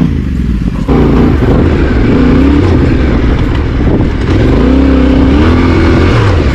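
Yamaha Ténéré 700 parallel-twin engine revving hard while being ridden on sand. Its pitch climbs and falls twice as the throttle is worked, over a dense rumble.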